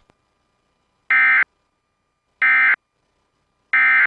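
Three short bursts of NOAA Weather Radio SAME digital data tones, about a second and a quarter apart, with silence between: the End of Message code that closes the weekly test broadcast.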